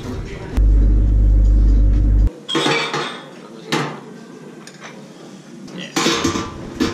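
Plates and cutlery clinking and clattering at a breakfast buffet counter, in short bursts about two and a half seconds in and again near six seconds, with a couple of single clicks between. Before that, a loud low rumble for nearly two seconds that stops abruptly.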